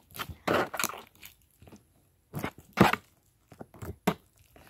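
Hands kneading and squishing thick slime with hand sanitizer mixed in, making a series of irregular short squelches with pauses between them.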